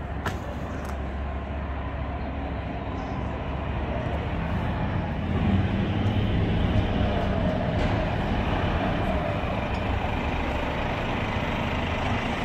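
Steady low background rumble, growing a little louder about five seconds in, with no distinct events.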